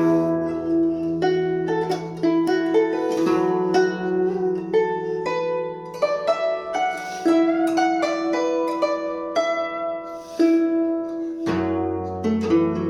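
Solo Chinese zither music: a quick run of plucked notes over low notes left ringing.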